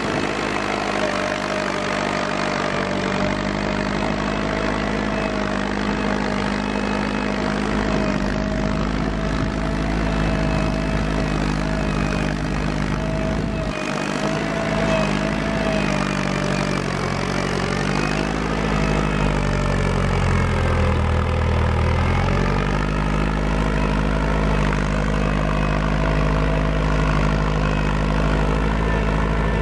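Farm tractor engine running steadily under load as it pulls a three-disc plow through sod. About twenty seconds in, the engine note drops as it lugs, then picks back up.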